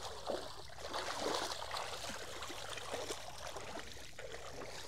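Bare feet and legs wading through shallow water, with uneven splashes.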